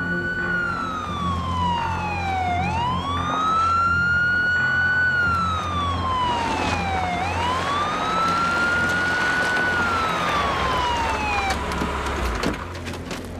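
Emergency vehicle siren in a slow wail. The pitch falls gradually, then sweeps quickly back up and holds, three times over, and the siren cuts off partway through its last fall, a couple of seconds before the end.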